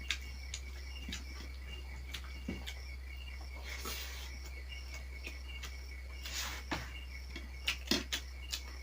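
Faint high chirps repeating in an even rhythm, insect-like, over a steady low hum. Scattered sharp clicks and two short rustles come about four and six seconds in.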